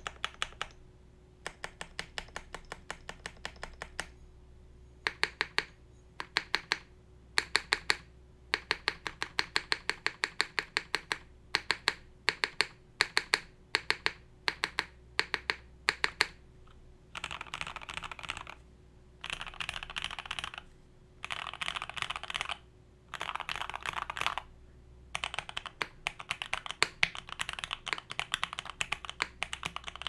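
Custom SAM S65v2 mechanical keyboard with lubed Gateron Oilking linear switches on a polycarbonate plate. Keys are pressed one at a time in short runs for about the first half, then typed fast in bursts with short pauses, becoming nearly continuous typing near the end.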